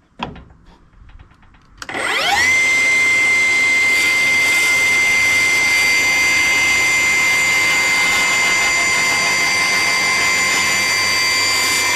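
Handheld circular saw starting about two seconds in with a rising whine, then running steadily at speed while ripping a long, slightly angled cut along a pine board. A few small clicks of handling come before it starts.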